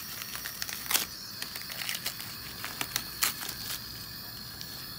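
Clear plastic packaging of a nebulizer mask crinkling and crackling as it is opened by hand, in scattered sharp rustles, over a faint steady hiss.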